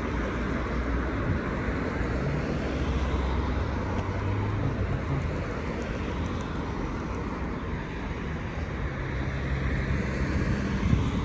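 City road traffic: steady noise of cars driving along a wide avenue, with a low engine hum that swells twice as vehicles pass.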